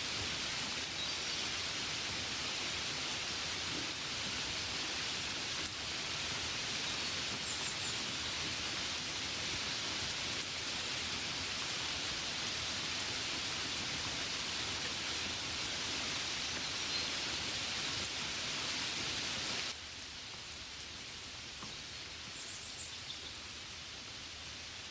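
Steady gentle rain, an even hiss of drops, that drops suddenly to a softer level about twenty seconds in.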